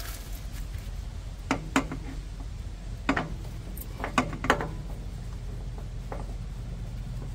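About half a dozen sharp metallic clinks and knocks, spaced unevenly, from hand work on a truck engine's coolant filter, over a steady low hum.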